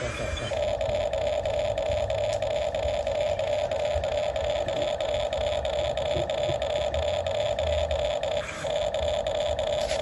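RC model excavator's motor running with a steady high whine, dipping briefly about eight and a half seconds in.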